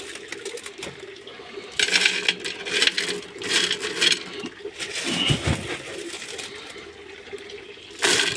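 Gravel clattering as it is poured into a terracotta clay pot, in a few short bursts with pauses between, to serve as filter media.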